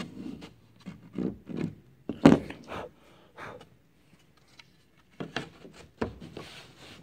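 Thin wooden plank and a block plane handled on a wooden canoe hull as a replacement plank is test-fitted: a series of short knocks, taps and scrapes of wood on wood, the loudest knock about two seconds in.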